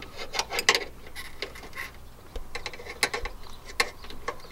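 Irregular clicks, taps and rustling as hands feed electrical wires through an opening in a car's plastic center console trim.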